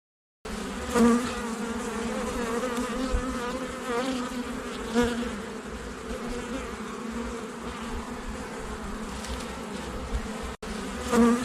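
Honeybees buzzing: a steady, wavering hum of many bees, with single bees flying close past and swelling louder about a second in, again midway and near the end, and a brief break shortly before the end.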